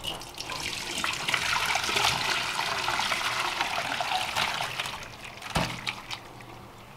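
Water streaming steadily for about five seconds as blanched chicken intestines are drained or rinsed, then stopping, followed by a single sharp knock about half a second later.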